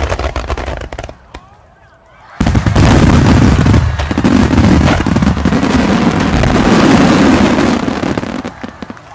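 Fireworks: a quick string of sharp crackles, then a short lull, then about two seconds in a sudden loud barrage of overlapping firework bursts that goes on for about six seconds before dying away.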